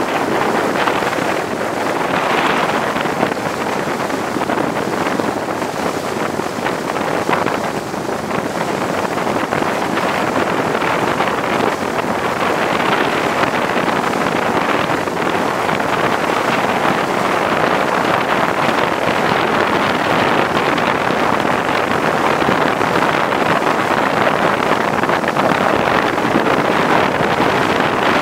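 Wind buffeting the microphone over the steady rushing noise of a boat under way on open water.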